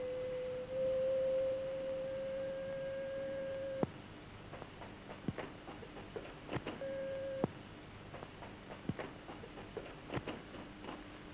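A steady, pure whistle-like tone holds for nearly four seconds and then cuts off with a click. Scattered clicks and crackles from an old optical film soundtrack follow, and the tone comes back for about half a second near the middle.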